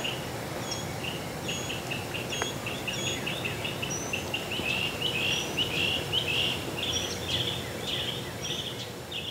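Birds chirping outdoors: a quick run of short calls that grows denser and louder in the middle, with an occasional thin higher note, over a steady low rumble of background noise.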